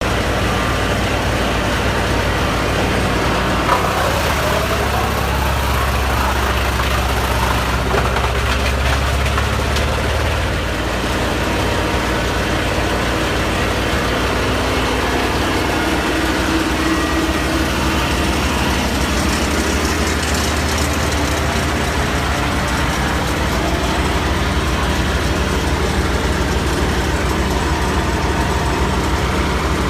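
Portable wood chipper's engine running steadily, its low note heavier from about four to ten seconds in, with a short rising whine near the start of that stretch.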